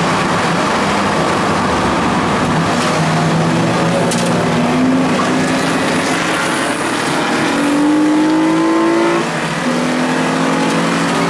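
Race car's engine heard from inside the cabin at full throttle, its pitch climbing steadily and then dropping suddenly about nine seconds in as it shifts up, over steady road and wind noise.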